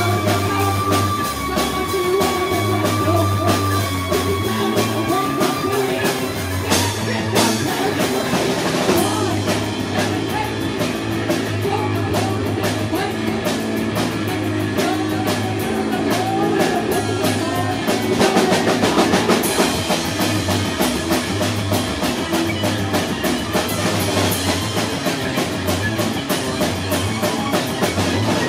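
Live rock band of two electric guitars, one of them a double-neck, and a drum kit, playing loudly with a steady low pulse underneath. A long high note is held over the band for the first six seconds or so.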